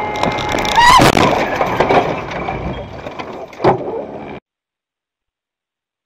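Dash-cam audio from inside a car: steady road noise, then a loud crash about a second in and another sharp thump a little before four seconds. About four and a half seconds in, the sound cuts off to complete silence.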